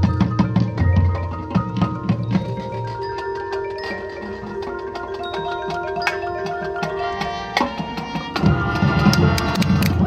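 High school marching band playing: percussion with mallet keyboards and held notes through the middle, then heavier drum hits near the end.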